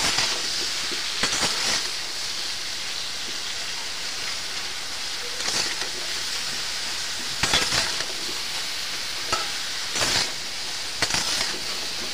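Chunks of raw green jackfruit sizzling in hot oil in a metal wok, with a steady frying hiss. A metal spatula scrapes and stirs them against the pan now and then, every second or two.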